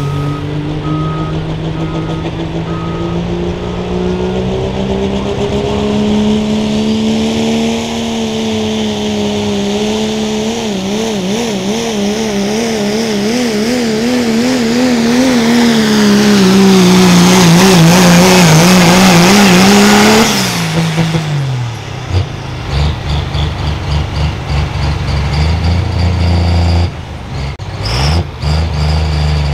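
Diesel pulling pickup (3.0 Limited Pro Stock class, 3-inch turbo) at full throttle under sled load. The engine pitch climbs steadily, wobbles up and down rapidly through the middle of the pull, and peaks loudest. About twenty seconds in the throttle is cut abruptly and the engine drops to a lumpy idle with short blips.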